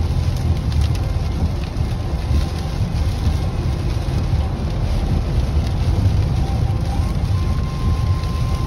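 Steady low road rumble inside a car's cabin as it drives on a rain-soaked highway, with rain spattering on the windshield.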